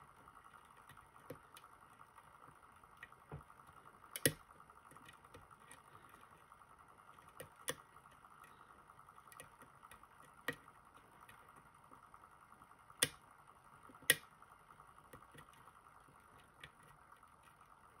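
Scattered small metallic clicks and ticks of a lock pick working the pins of a JPM Surf euro-profile cylinder held under tension, about a dozen in all. One louder click comes about four seconds in and two more come close together later on, over a faint steady hum.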